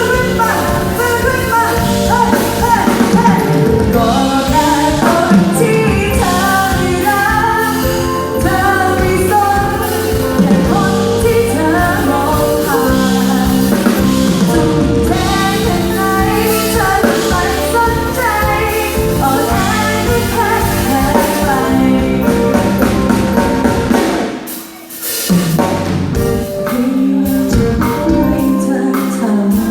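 A woman singing live over a band with a drum kit, her melody carried above steady backing; the music drops out for a moment about 25 seconds in, then picks up again.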